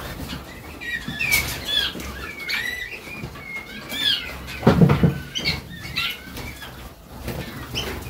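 Young male Harzer Roller canaries giving short chirping calls, with wing flutters as they fly about the flight box. A louder knock comes about five seconds in.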